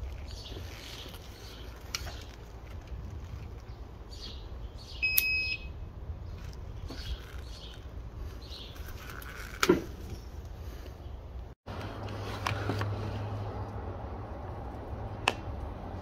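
One short, high electronic beep about five seconds in, then a sharp knock a few seconds later, with faint handling clicks and rustle around them.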